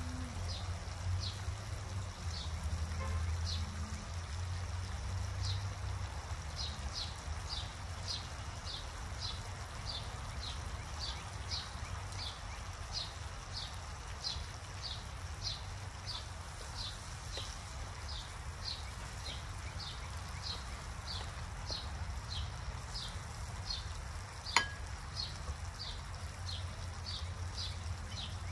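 An animal calling with short, high, falling chirps, about one and a half a second, over a steady low rumble. A single sharp click comes near the end.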